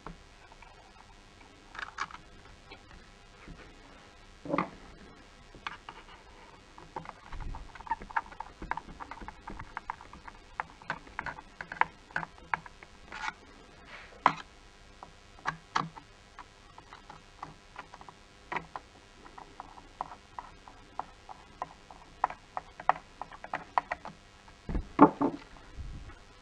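Irregular plastic clicks and taps as hands handle a Mercedes W212 steering wheel's button panels and trim pieces, with a heavier knock about four seconds in and a louder thump near the end.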